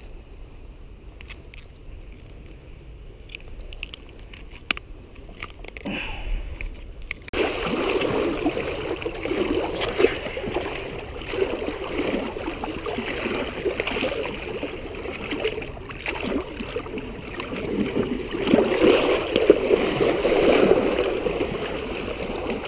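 A few light clicks of pliers working a hook out of a fish's mouth. About seven seconds in, these give way abruptly to louder, steady sloshing and splashing of waves against shoreline rocks, around a small striped bass held in the water.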